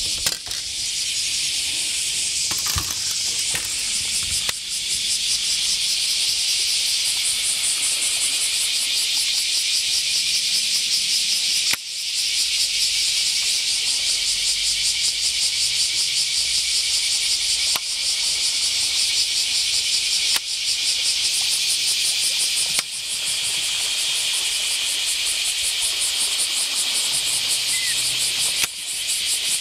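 Loud, steady chorus of summer cicadas: a dense high buzz with a fast pulsing texture, broken by several abrupt cuts with brief dips in loudness.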